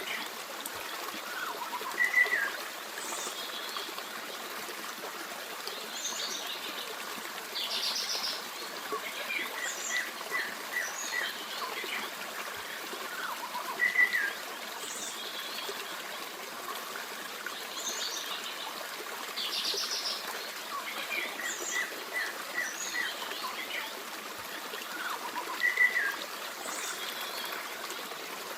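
Forest stream running steadily, with several songbirds chirping and singing over it. A louder short call stands out three times, about every twelve seconds, within a pattern of calls that repeats.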